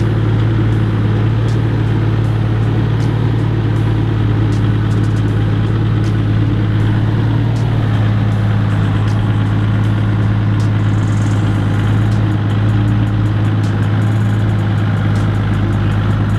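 Toyota LandCruiser engine running steadily at low revs as the 4WD crawls down a rutted mud track, with a constant low drone and scattered faint ticks.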